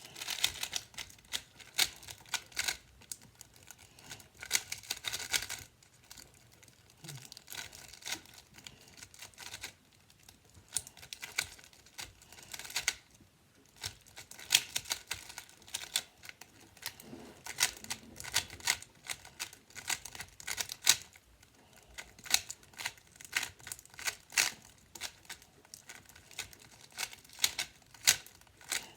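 Tornado V3 3x3 speed cube being turned rapidly during a timed solve: runs of quick clicking layer turns, broken by a few short pauses of about a second.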